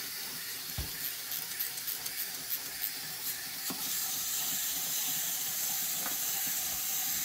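Small plastic wind-up walking toys running, their clockwork gears giving a steady whir with quick high ticks as their feet step on the tabletop. The whir fills out about four seconds in as a third toy is set down running.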